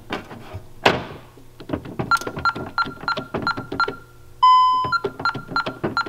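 Security system keypad beeping once per key press as a code is entered to reset the system: short, even beeps about three a second, with one longer, lower beep about four and a half seconds in. A single knock a little under a second in from the keypad's plastic cover being flipped open.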